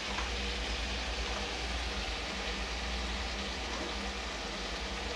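Spiced onion masala sizzling steadily in a steel kadai over a gas flame, with a steady low hum underneath.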